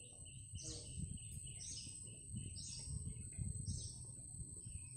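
A bird calling again and again, about once a second, each call short with a falling pitch. Under it are a steady high-pitched whine and a low rumble.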